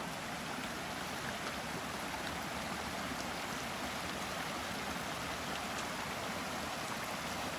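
Small rocky mountain creek running and splashing over stones and little cascades, a steady rushing sound.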